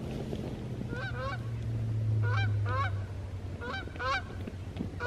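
Canada geese honking in two-note calls, about four pairs spaced a second and a half apart, over a low steady hum.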